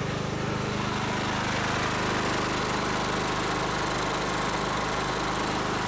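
16 hp Kohler engine on a riding mower running steadily and fairly loud, on a newly fitted replacement carburetor.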